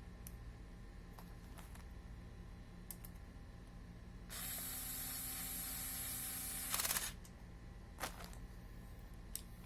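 A small cordless screwdriver motor runs steadily for about two and a half seconds with a hissing whir, then a brief louder rattle as it stops. A few light clicks come before and after it.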